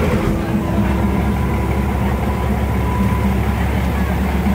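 Diesel railcar engine running with a steady low drone, heard from aboard the train as it creeps slowly through the market.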